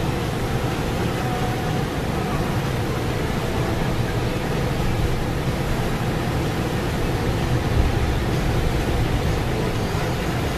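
Steady rushing noise heard inside a car driving through a flooded street in rain: tyres pushing through standing water and the engine running.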